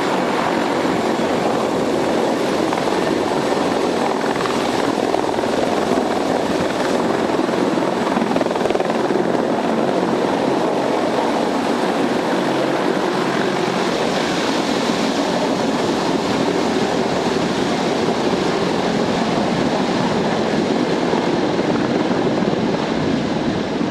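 CH-53E Super Stallion helicopter's three turboshaft engines and rotors running: a loud, steady, even rush of noise with no let-up.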